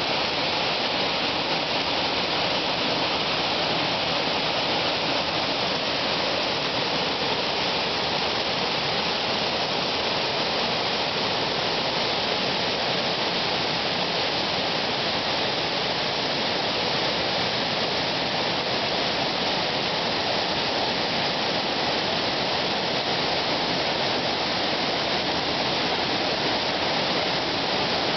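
Waterfall: water pouring over rocks with a steady, unbroken rush.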